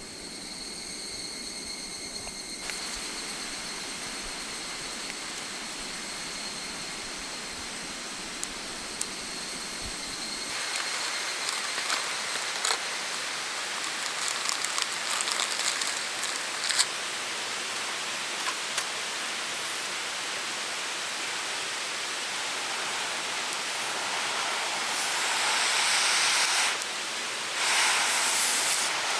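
Mountain river water running, a steady rush of flowing water, with scattered sharp clicks around the middle and louder surges near the end.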